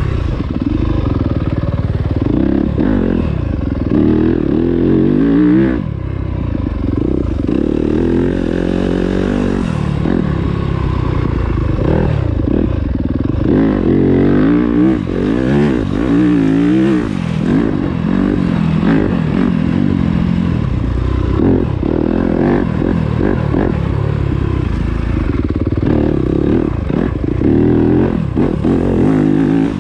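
2020 Yamaha YZ250FX's single-cylinder four-stroke engine being ridden hard off-road, revving up and easing off over and over, its pitch rising and falling every second or two.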